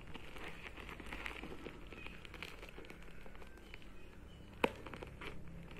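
Crinkling and rustling of a thin black plastic courier mailer bag being handled, with scattered small crackles. A single sharp snip of scissors cutting into the plastic about four and a half seconds in.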